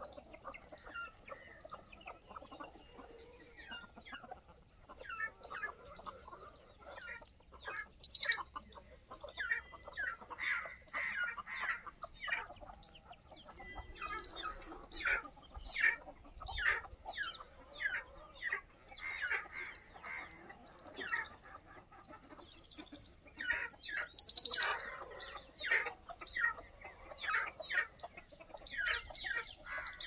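Free-range aseel and desi chickens clucking and calling in many short, separate calls, growing busier about ten seconds in.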